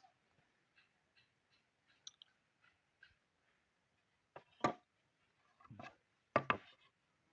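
Faint scattered clicks, then three sharp knocks about halfway through, from hand work on wooden pieces.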